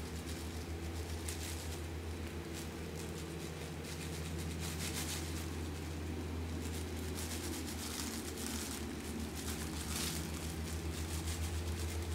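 A steady low machine hum with a fast flutter in it runs throughout, with a few faint soft rustles of thin plastic gloves as the hands work a small paintbrush.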